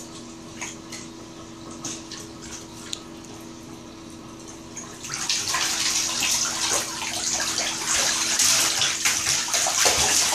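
Siberian husky puppy splashing in shallow bathwater: a few small splashes at first, then from about halfway through continuous, louder splashing as it stands and paws at the water.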